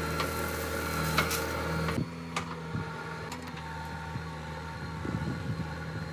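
Diesel engine of a JCB machine running steadily, with a few sharp knocks and clanks. The high hiss drops away abruptly about two seconds in.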